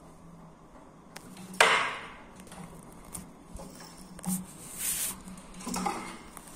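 A small metal bearing batted about by a cat, knocking and clattering on a hard tiled floor and against wooden furniture. One sharp, loud knock comes about a second and a half in, followed by several lighter knocks and rattles near the end.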